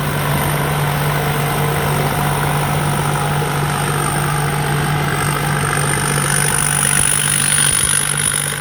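Somboon Pattana rice combine harvester's 260 hp engine running steadily at working speed. A thin high whine rides over it and rises a little in pitch about five seconds in.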